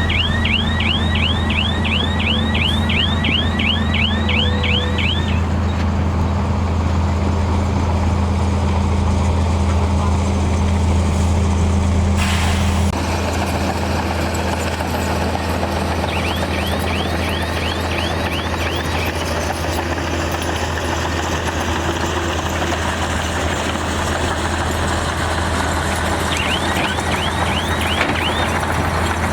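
Heavy diesel earthmoving machinery running steadily with a deep engine drone. A reversing alarm sounds over it three times, each spell a quick string of high chirps at about three a second. About halfway through there is a short burst of noise, and the engine note drops a little just after it.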